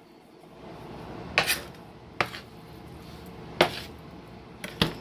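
Chef's knife knocking against a wooden cutting board while cutting chicken into pieces: four sharp, separate knocks at uneven intervals.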